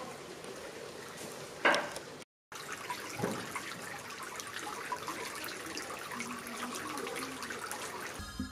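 Water trickling and dripping from a bamboo pipe into the stone basin of a shrine's purification fountain, a steady patter of many small drops. A single short bump about a second and a half in stands out over the water.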